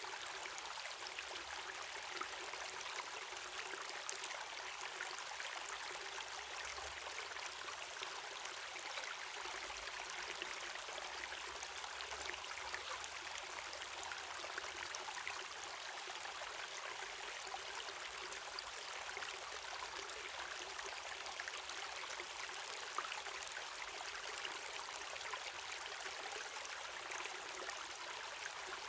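Waterfall and river water running, a steady hiss of splashing water with no change in level.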